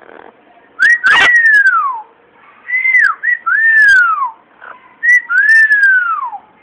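Amazon parrot whistling: clear whistled notes that rise briefly and then glide down in pitch, in three phrases about two seconds apart.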